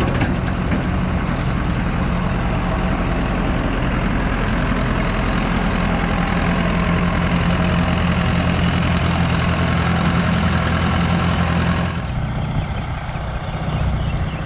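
A heavy engine running steadily at a constant speed. About twelve seconds in, the sound switches abruptly to a duller, slightly quieter engine idle.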